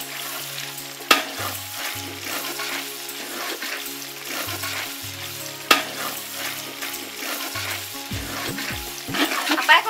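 Spiced chicken curry sizzling in a large aluminium pot as a metal ladle stirs it, with two sharp clinks of the ladle against the pot, about a second in and again near the middle.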